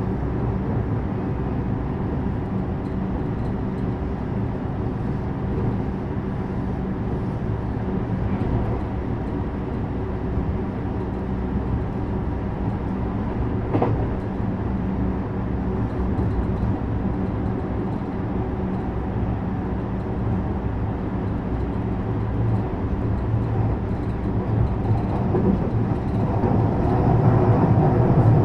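Inside a JR West 321 series electric train: a steady low hum with a single sharp click about halfway. The hum grows louder over the last few seconds.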